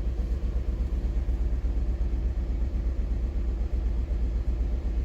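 Turbocharged four-cylinder engine of a 2018 Fiat 500 idling with a persistent misfire, a steady low rumble. The misfire followed a tank of diesel, which damaged the spark plugs and valves and left a cylinder without compression; the engine is running rich.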